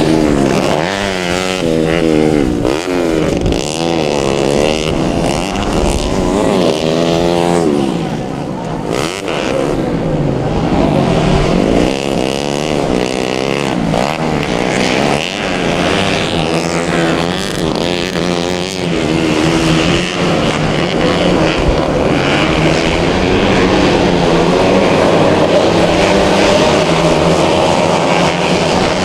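Several modified four-stroke underbone (bebek) grasstrack motorcycles racing, their engines revving up and falling back over and over, several at once.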